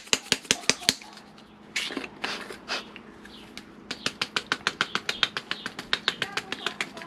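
Spice shaker being shaken over a marinade, making quick rhythmic clicks about five a second. The clicks come in two runs, with a short break of softer rustling in between.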